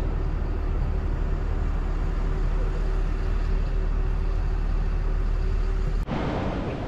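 A bus engine idling: a steady low rumble with a steady hum over it. It cuts off abruptly about six seconds in, giving way to the busy murmur of an airport terminal hall.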